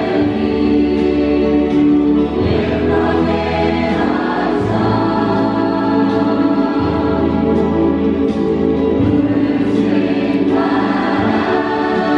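A choir of men and boys singing in harmony, holding sustained chords that change every couple of seconds over a deep bass line.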